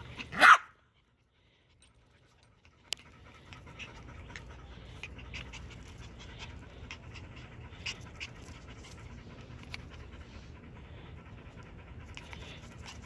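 A short, loud sound about half a second in, then after a brief silence a dog panting steadily, with scattered light clicks through the panting.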